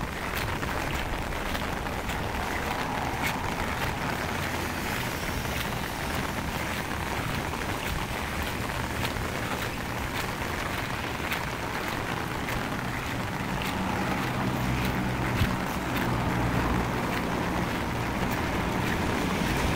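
Heavy rain pouring down steadily, with scattered sharp drop hits close to the microphone. A low rumble swells in over the last several seconds.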